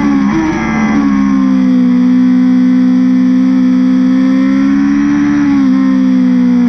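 BMW S1000RR's inline-four with an Akrapovic exhaust at high revs. Its note falls and jumps briefly near the start, then holds a steady high pitch, rising slightly and dipping again about five seconds in.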